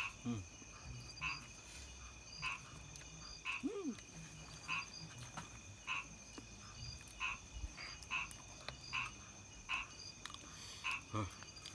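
Frogs calling at night: short croaks repeated roughly once a second, over a steady high trilling of insects.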